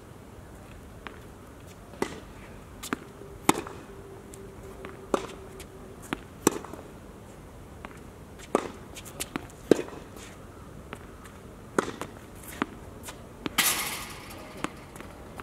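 Tennis rally on an outdoor hard court: racket strings striking the ball and the ball bouncing on the court, one sharp knock every half second to second and a half. A short rushing scuff comes near the end.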